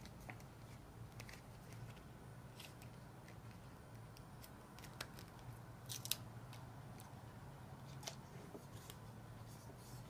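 Faint crackling and small clicks of a paper-backed vinyl sticker being peeled from its backing, loudest in a short cluster about six seconds in.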